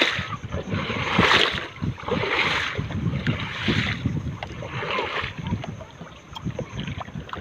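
A hand slapping and sweeping the surface of waist-deep seawater, about five splashes roughly a second apart, with wind rumbling on the microphone.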